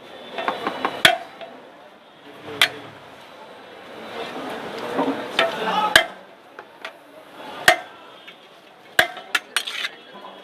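Metal serving utensils clanking against cookware while biryani is dished out: a handful of sharp single knocks a second or more apart, then a quick run of knocks near the end, over background murmur.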